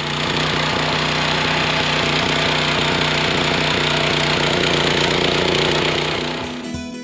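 Harbor Freight Predator small gasoline engine running steadily and loudly under load while powering a tiller, a steady engine note under a broad noisy rush. It fades out near the end.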